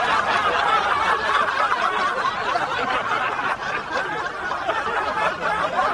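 People laughing steadily, a dense run of chuckles and snickers with no words.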